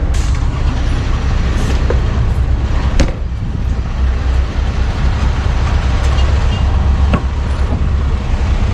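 Steady low rumble of idling vehicle engines and traffic, with a sharp click about three seconds in and another about seven seconds in.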